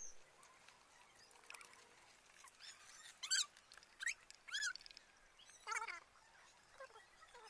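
Faint, short chirping calls from an animal, about half a dozen spaced irregularly over several seconds, the loudest about three and six seconds in, over a quiet background.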